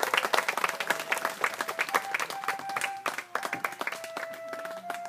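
A crowd applauding with dense clapping that thins out after about three and a half seconds. A slow melody of held notes starts about a second in and carries on as the clapping fades.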